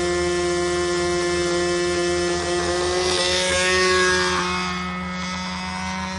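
PA 75 two-stroke glow engine on an SV-11 control-line stunt model running steadily at a high pitch as the plane takes off and circles. It is being run a little on the rich side for break-in. About three to four seconds in it passes close and gets louder, its pitch sweeping, then eases off a little.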